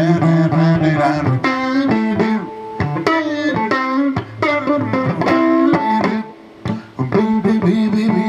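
Blues band playing an instrumental break: a guitar takes a solo of quick picked notes with bends, over bass and accompaniment.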